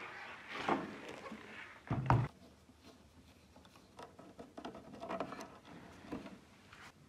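Irregular handling noises: light clicks, rustles and knocks, with one heavier thump about two seconds in.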